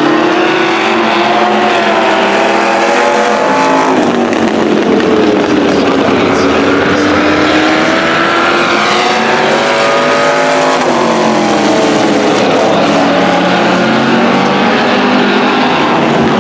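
Several demo race cars' engines running hard around an oval track, their pitch rising and falling over and over as they accelerate and lift for the turns. The engine sound is loud and continuous.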